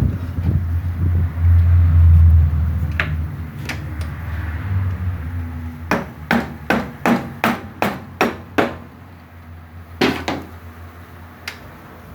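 Hammer blows on a rotor puller to free the magneto rotor (flywheel) of a Honda XRE 300 from its shaft: a quick run of about nine sharp strikes, roughly three a second, then one more a second later. A low rumble of handling noise comes before the strikes.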